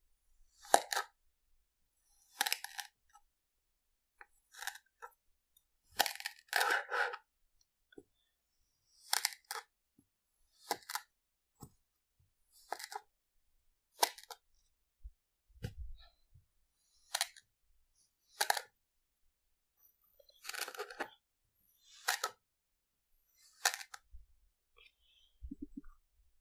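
Kinetic sand being sliced with a wooden knife: about fifteen short gritty cuts, one every second or two, with quiet between them.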